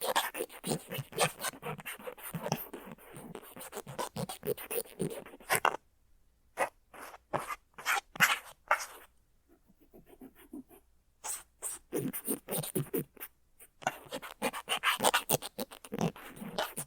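Cotton swab rubbing and scratching on the plastic shell of a binaural-microphone earphone, right at the microphone, in runs of quick strokes broken by short pauses. Between strokes the background is very quiet, with the mic's white-noise hiss cut by noise reduction.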